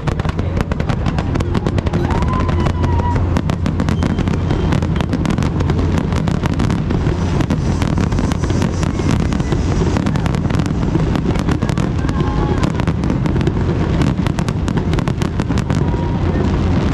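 Fireworks display with a dense, continuous run of bangs and crackles, many reports a second.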